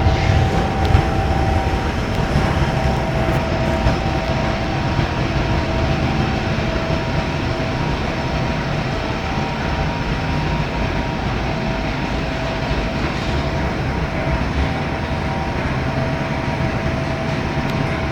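Furnace running: a steady rumbling roar with a faint, even whine in it.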